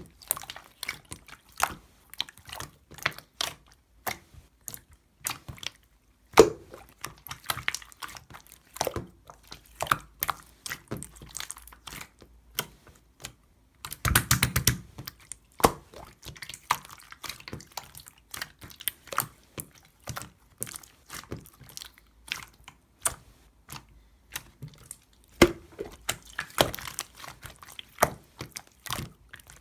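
Irregular close-up clicks and taps, with a denser, louder cluster about fourteen seconds in.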